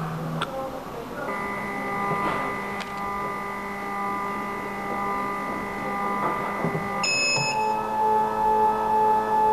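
Electrolyte analyzer's autosampler running: a steady motor whine starts about a second in and steps up slightly in pitch about seven seconds in, with a short high beep at that moment.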